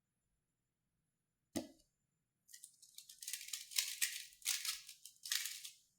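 3x3 speedcube being turned very fast during a timed solve, as a rapid, continuous plastic rattle of turns starting about two and a half seconds in. A single click comes about a second and a half in.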